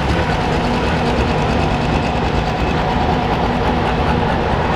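Massey Ferguson tractor's diesel engine running steadily under heavy load while dragging a weight-transfer pulling sled.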